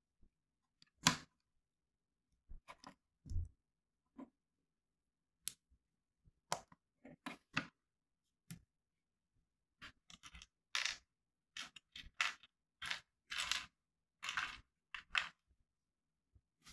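Plastic Lego bricks being handled and pressed together on a table: a string of short clicks and rustles, sparse at first and busier in the second half.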